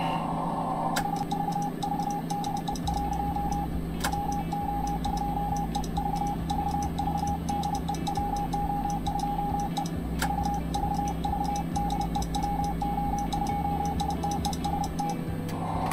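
Morse code (CW) sidetone from a ham transceiver, a mid-pitched beep keyed on and off in a steady repeating pattern while it transmits into a linear amplifier at about a kilowatt. A few sharp clicks break the keying, and a steady low hum runs underneath.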